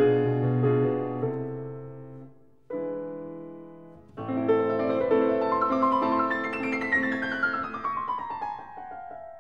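Background piano music. It dies away and restarts twice in the first four seconds, and near the end a run of notes falls in pitch.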